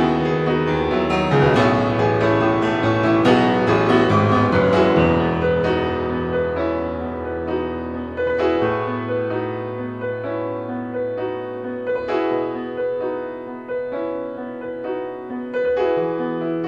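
Background piano music: slow chords with a melody on top, getting gradually softer.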